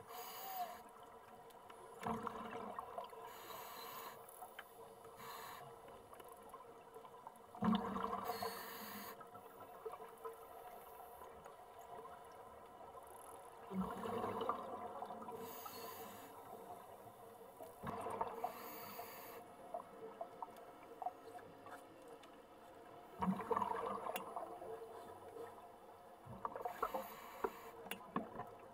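Scuba divers breathing on regulators underwater: bursts of exhaled bubbles come about every five seconds, six in all, over a quieter steady wash.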